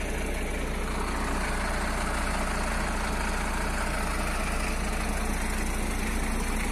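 Diesel engine of an Iveco Stralis 360 semi-truck idling steadily.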